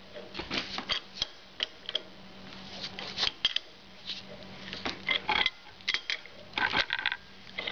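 Locking pliers working the chrome top cap of a Harley-Davidson Sportster front fork, tightening it by hand: a run of irregular short metallic clicks and taps as the jaws grip and shift on the cap.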